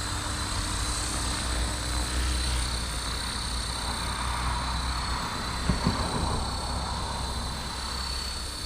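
Blade Fusion 360 electric RC helicopter in flight: a steady high whine from the motor and rotors over a low rumble, with two brief thumps about six seconds in.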